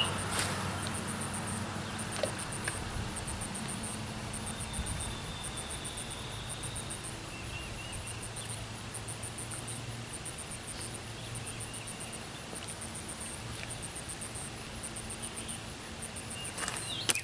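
An insect chirping in a high, even pulse, about three a second, over a faint low steady hum.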